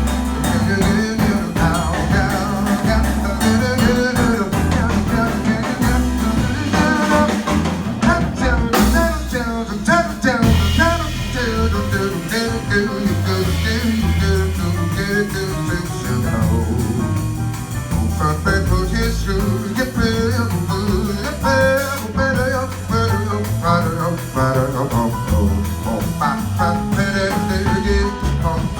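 Live jazz quintet playing, with guitar, keyboards, bass and drum kit.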